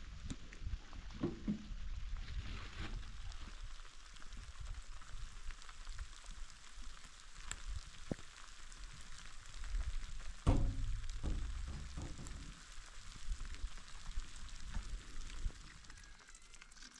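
Heavy rain falling: a steady hiss of many small drop ticks, with a few low thumps, the loudest about ten seconds in.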